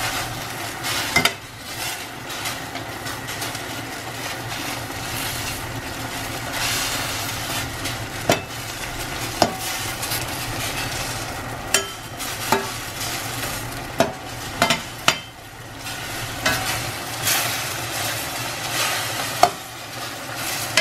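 Eggplant pieces sizzling in a stainless steel frying pan in a sauce of soy sauce, chili, garlic and water, while a spatula stirs and turns them. Sharp knocks of the spatula against the pan come every few seconds over the steady hiss.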